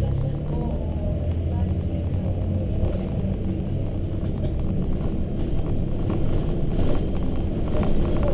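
A Volvo B7RLE single-deck bus under way, heard from inside the cabin: its rear-mounted six-cylinder diesel engine running with steady low rumble and road noise, building slightly as the bus moves on.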